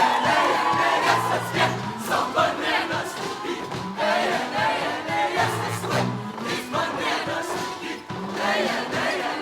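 Show choir and live band performing: drums, bass guitar and a group of voices together, with crowd noise under it.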